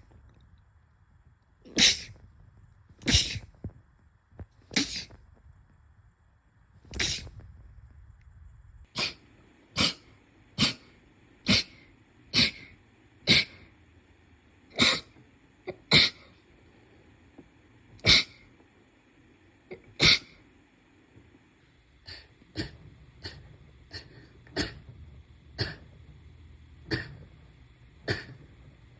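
A long run of short, sharp sneezes, about twenty of them, coming every second or two and bunching closer together in the middle.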